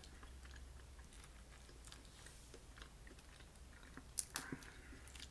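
Faint chewing with small mouth clicks, then sharp crackling clicks about four seconds in as a boiled crawfish shell is cracked and peeled by hand.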